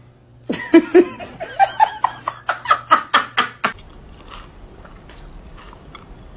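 A woman laughing in a quick run of pitched bursts, about four a second, climbing higher in pitch over about three seconds and then cut off sharply. After the cut, faint munching follows.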